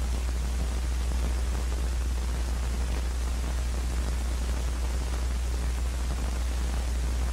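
Steady hiss with a constant low hum and nothing else: the background noise of an old film soundtrack.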